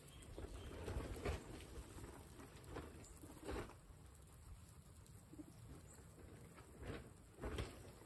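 A herd of guinea pigs rustling in straw and fresh grass as they eat, with several short, louder rustles. A low rumble of wind on the microphone runs underneath.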